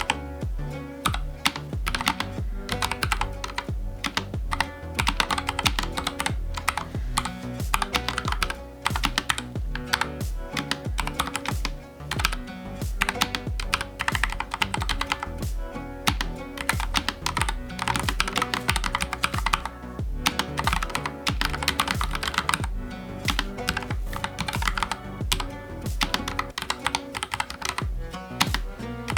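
Continuous fast typing on a NuPhy Air75 low-profile mechanical keyboard with Gateron Brown tactile switches: a dense run of key clicks and clacks, with background music under it.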